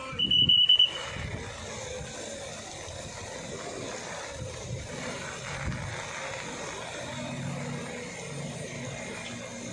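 A loud, high-pitched electronic beep pulses for under a second at the start. After it comes a steady rushing noise of floodwater running across a street, with a vehicle engine running underneath.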